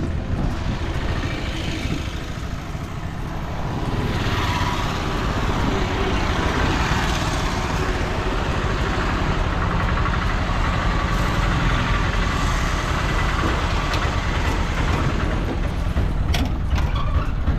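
A motor vehicle's engine running with road noise, steady and rumbling, growing louder about four seconds in; a few sharp clicks near the end.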